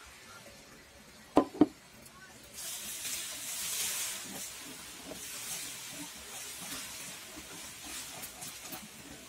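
Two sharp knocks about a second and a half in, then the hot roasted gram flour and ghee mixture sizzles with a high hiss as the freshly added sugar syrup is stirred into it with a wooden spatula, starting about two and a half seconds in.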